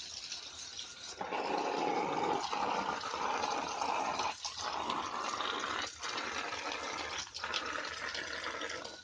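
Tap water pouring and splashing onto banana leaves as they are rinsed under a running tap. The splashing gets louder about a second in and breaks off briefly four times as the leaves are moved under the stream.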